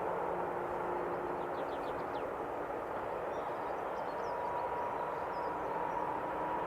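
Train running past, a steady rolling rumble with a faint steady whine. A bird chirps a few times partway through.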